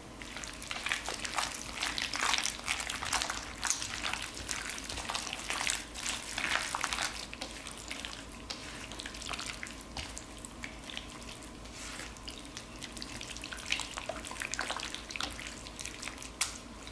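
Marinated chicken sizzling and crackling over a charcoal grill. The sound comes in uneven spells, busiest in the first several seconds and again near the end.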